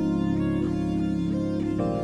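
Background music: sustained keyboard chords with a melody on top, the chord changing near the end.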